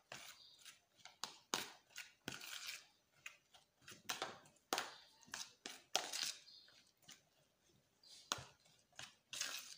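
Metal fork stirring a thick rice-and-egg mixture in a plastic tub: irregular soft scrapes and clicks of the fork against the tub's sides and bottom.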